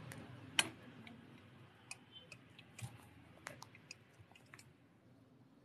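Faint scattered clicks and light rubbing from a handheld phone or camera being handled and repositioned, with a sharper click about half a second in.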